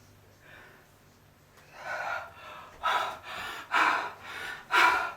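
A person breathing hard: a series of breathy gasps about a second apart, getting louder toward the end.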